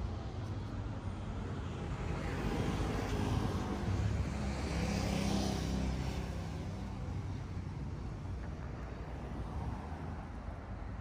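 Street traffic: a motor vehicle passes close by, its engine and tyre noise swelling from about two seconds in, peaking near the middle and fading, over a steady low traffic hum.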